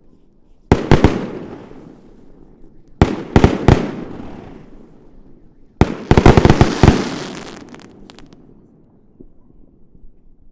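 New Year fireworks bursting overhead in three volleys: two loud bangs about a second in, three more around three seconds in, then a rapid cluster of bangs near six seconds. Each volley trails off in an echoing rumble.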